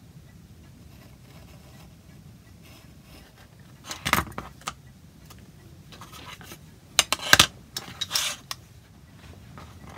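A few sharp clatters and scrapes of a metal utility knife and a thin oak fret being put down and shifted on a cutting mat: one burst about four seconds in and a louder cluster around seven to eight seconds, with little before it.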